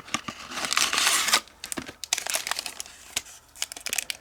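Crinkly packaging wrapper being handled and torn open: a long rustle about a second in, then scattered short crackles.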